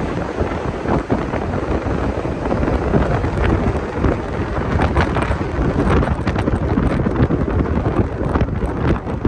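Wind buffeting the microphone on a moving tour bus: a loud, steady rush of noise, heaviest in the low end, with the bus's road noise beneath it.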